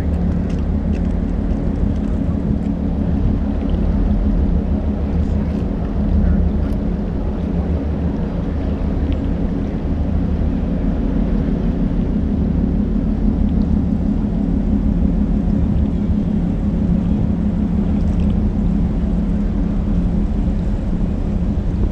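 Diesel engines of the Great Lakes freighter Hon. James L. Oberstar running steadily as the ship passes close by: a deep, even drone.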